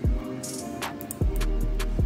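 Background electronic music with a kick drum and hi-hats; the deep bass drops out briefly and comes back with the full beat a little over a second in.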